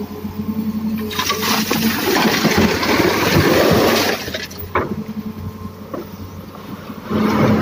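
Excavator bucket dumping wet laterite rock and muddy water into a steel dump-truck bed: a rush of pouring water and rattling stone from about a second in, lasting about three seconds, and again near the end, with a single knock in between. A steady engine hum runs underneath.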